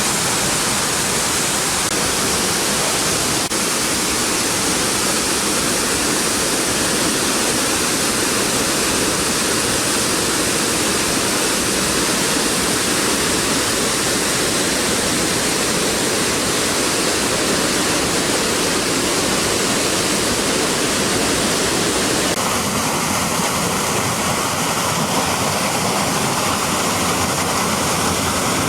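Waterfall: a steady, loud rush of falling water. The rush changes abruptly in tone about twenty-two seconds in.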